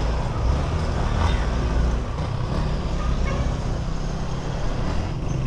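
Steady road and wind noise from riding a Honda Click 125 scooter, with a low rumble and the sound of traffic around it.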